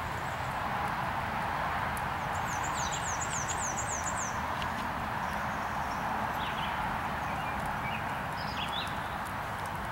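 Hoofbeats of a Thoroughbred horse trotting on sand arena footing, against a steady background hiss. A bird sings a short trill of about eight quick falling notes a few seconds in.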